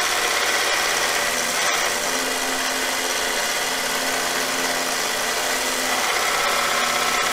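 Harbor Freight 1x30 belt grinder, converted to a variable-speed DC motor, running steadily while a lathe tool held in a wooden jig is ground against the sanding belt: an even grinding hiss over the hum of the motor.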